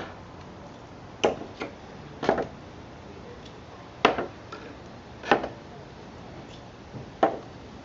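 Hammer knocking on nails in pallet boards, about six sharp blows at uneven intervals, driving the nails back out so they can be pulled.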